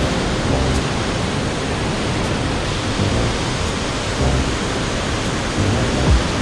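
Steady rush of fast-flowing water, a creek or waterfall running high after a storm.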